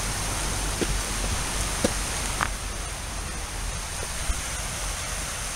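Hikers' footsteps on a rocky dirt trail, a few light taps and scuffs, over a steady rushing hiss.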